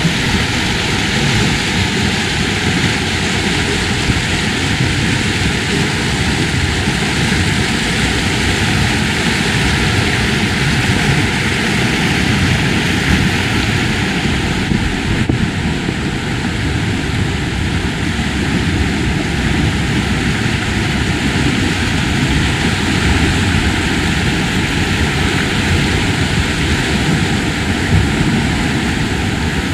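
Rushing river water: a loud, steady, unbroken rush of noise.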